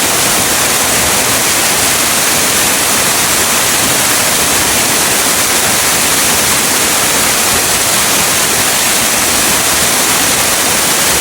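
Waterfall pouring close by: a loud, steady rush of falling water with no break.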